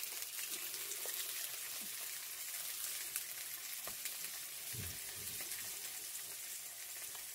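Slices of tofu sizzling in oil in a shallow frying pan, a steady hiss, with a few light clicks of chopsticks against the pan.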